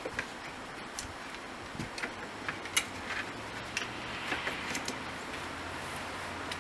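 Scattered light clicks and metallic taps of hand tools and lock parts as the old RV door lock is being removed, with a faint low hum underneath from about two seconds in.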